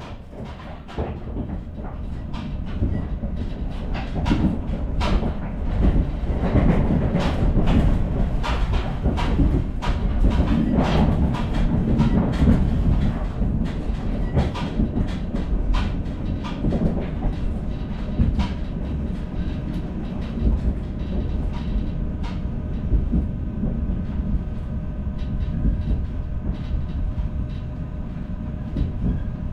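Local train running on the rails, heard from inside the car: a steady rumble with the wheels clicking over rail joints. It grows louder over the first few seconds as the train picks up speed, and later a few steady tones join the rumble.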